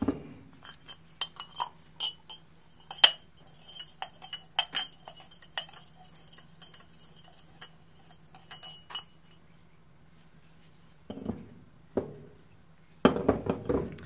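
Metal parts of a cut-open scroll compressor being handled: a run of sharp clinks and knocks, loudest about three and five seconds in, then a few duller knocks near the end.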